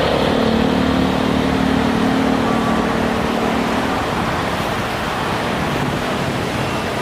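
Boeing 747 cargo jet's engines during and after take-off: a loud, steady rush of jet noise with a low hum that fades out about four seconds in, the whole sound easing slightly.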